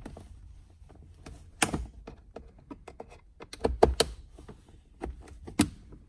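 Plastic center console trim panel being pried up with a plastic pry tool, its retaining clips starting to let go. Irregular sharp plastic clicks and snaps: one about a second and a half in, a small cluster around four seconds, and another near the end, with faint ticks between.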